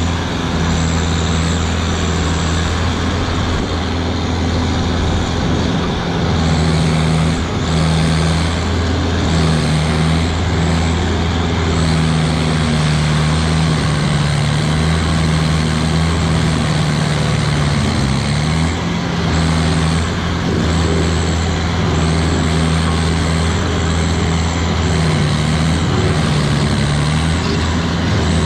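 Carlton 8018 stump grinder on a Bobcat T870 compact track loader grinding a large oak stump. The loader's diesel engine runs hard and steadily under load, its pitch dipping and recovering every few seconds as the cutter wheel bites, over the dense noise of the wheel chipping wood.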